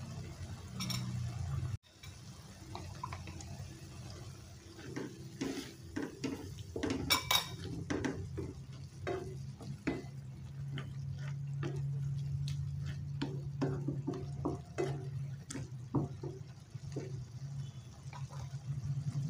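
A metal spatula clinking and scraping against a wok in quick irregular strokes as a stir-fry is stirred in its thickening sauce, over a steady low hum.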